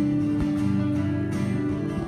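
Classical guitar played fingerstyle: plucked melody notes over a long ringing note through the first part.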